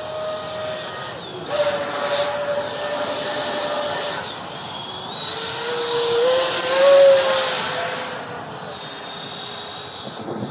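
Twin electric ducted fans of a Freewing MiG-29 RC jet whining in flight. The whine grows louder and rises in pitch through the middle, is loudest about seven seconds in, then eases off.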